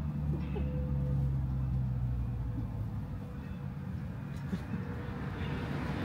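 A low, steady engine rumble that fades about halfway through.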